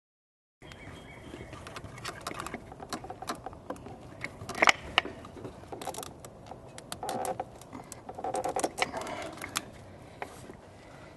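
Hand handling a plastic ignition coil and its wiring connector among rubber hoses on the engine: irregular plastic clicks and knocks with rubbing and rustling, starting about half a second in, the sharpest click a little before the middle.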